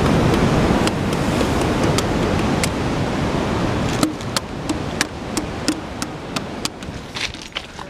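Sea surf washing against a rocky shore, mixed with wind on the microphone; the wash fades over the second half. Scattered sharp clicks and taps run over it.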